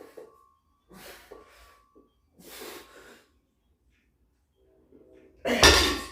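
A person breathing hard with forceful exhales during a set of rows, two breaths in the first half, and a much louder, sharper burst near the end.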